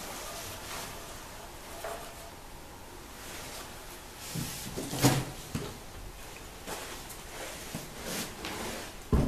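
Wooden knocks and light scraping as a squared timber is handled and turned over on a workbench, with one sharp knock about five seconds in and a heavier thump right at the end.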